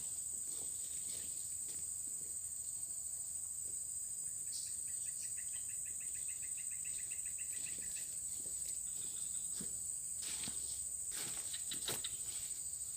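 Insects in the swamp keep up a steady high-pitched drone. A rapid chirping trill of about four notes a second joins it for roughly three seconds in the middle, and scattered light rustles and knocks come in near the end.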